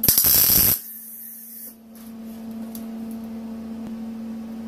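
Longevity MigWeld 140 MIG welder arc sizzling loudly for under a second, then cutting out, leaving a steady electrical hum. The weld won't hold, a sign of a poor ground connection.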